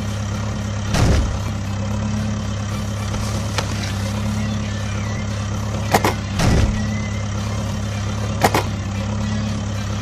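Truck engine idling, a steady low hum, with a few short knocks or whooshes over it, about a second in, around six seconds and near eight and a half seconds.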